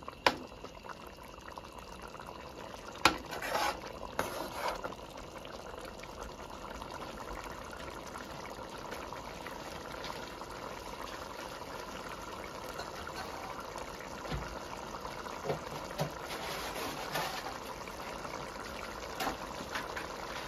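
Mackerel stew simmering steadily in a large metal pot, a low bubbling sound. A few sharp clinks of the stirring spoon against the pot come in the first few seconds.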